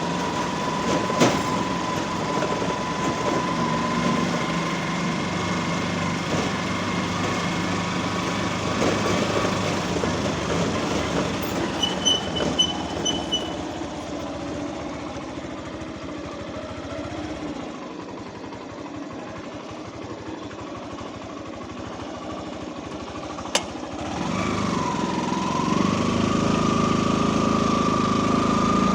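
A motor vehicle running, with a steady whine over the engine note. A short series of high beeps comes about twelve seconds in, and the engine grows louder and the whine wavers and rises over the last few seconds.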